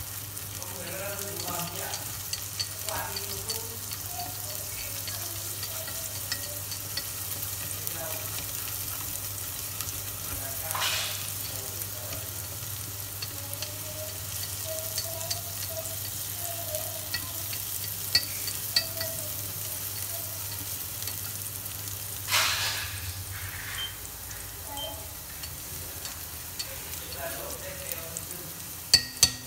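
Minced garlic sizzling in hot fat in a stainless steel pot, stirred with wooden chopsticks that click against the pot, with a few louder knocks.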